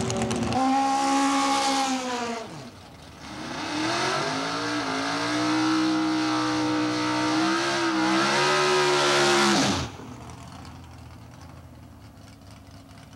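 Drag race car engine revved hard in a burnout: a short burst of about two seconds, a brief easing off, then held at a steady high pitch for about six seconds before the throttle is lifted and the sound drops away sharply. A low engine rumble continues faintly afterwards.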